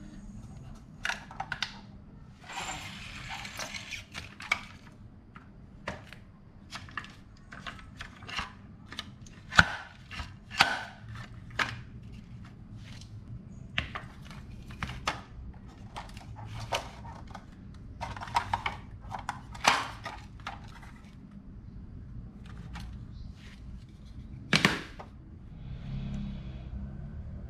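Glass marbles rolling and clacking down a wooden HABA marble run: an irregular string of sharp clicks and knocks, with a short rolling rush about three seconds in.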